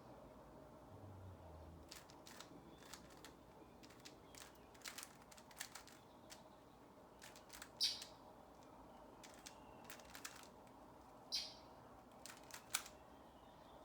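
Rubik's cube being turned by hand: quick, irregular plastic clicks of the layers turning, with a few louder snaps.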